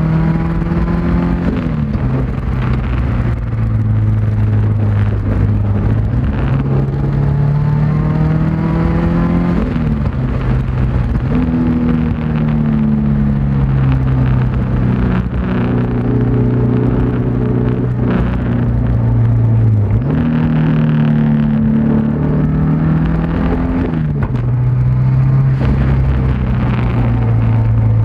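Subaru Outback XT's built turbocharged flat-four engine under hard load on track, heard from inside the cabin over tyre and road noise. Its pitch holds or climbs steadily, then changes sharply several times at gear changes.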